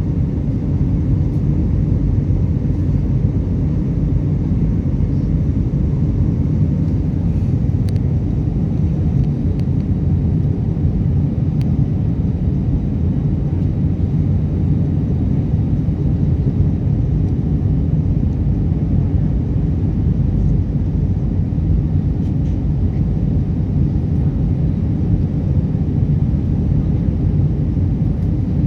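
Steady low rumble of an airliner's engines and rushing air heard inside the passenger cabin during descent.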